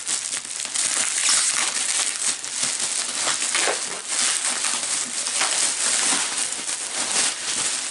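Packaging crinkling and rustling continuously with many small irregular crackles as a costume piece is unwrapped by hand.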